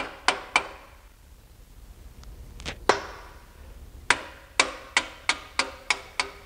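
A run of sharp metal clicks from a hand tool working the bolt through the pinion support tube and torque-arm bracket, about three a second. There is a pause of about a second and a half, then the clicks start again, closer together.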